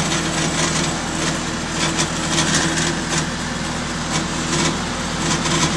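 Lincoln SAM 400 welder's four-cylinder Perkins diesel engine running steadily.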